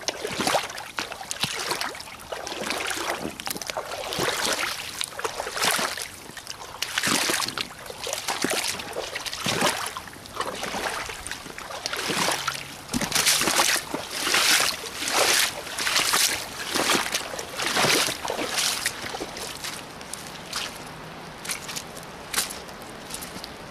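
Rubber boots splashing and sloshing through shallow running water, a splash at each step about once a second. Near the end the steps turn quieter and crisper as the boots move onto leaf litter.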